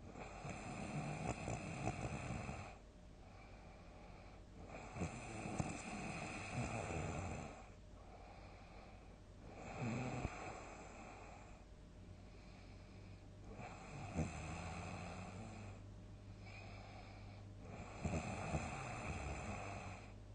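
A person snoring loudly, about five snores some four seconds apart, each lasting around two seconds.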